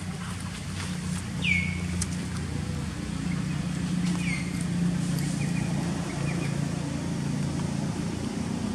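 A motor vehicle engine running steadily nearby, a low even hum, with two short high-pitched falling squeals about one and a half and four seconds in.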